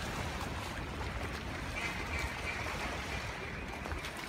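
Steady rushing noise of a large flock of mallards flying in and settling into flooded timber, with a faint chorus of duck calls from about two seconds in to near the end.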